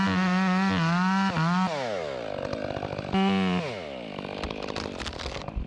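Large two-stroke chainsaw running at full throttle, then let off so the revs fall away. It is blipped back up once about three seconds in, then drops again towards idle.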